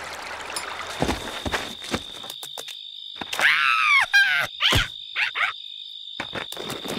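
Animated cartoon soundtrack: a soft splash of fountain water that stops after about two seconds, then a steady high insect trill of night ambience. Over it, a cartoon larva's strained, pitch-bending vocal grunts and cries, three or four short efforts as he pushes a heavy dung ball.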